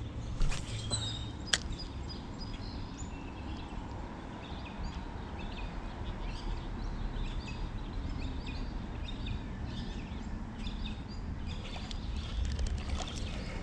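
Birds chirping over a low steady outdoor rumble, with a couple of sharp clicks in the first two seconds and a cluster of small clicks near the end.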